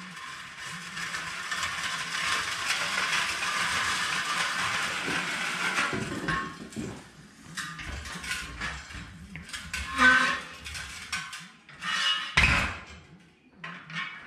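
A rusty, stripped Simplex motorcycle rolling chassis being wheeled across the floor. A steady rattle lasts about six seconds, then loose metal parts clank and knock several times, loudest about ten seconds and twelve seconds in.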